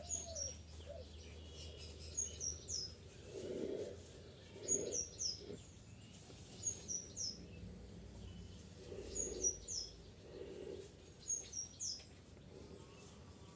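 Bird chirping: a short high call of two or three quick notes, repeated about every two seconds, with softer, lower sounds in between.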